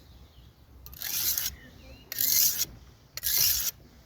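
Steel blade being drawn across a coarse 180-grit sharpening stone in three separate rasping strokes, about one a second. The blade is totally blunt and is being given its first sharpening.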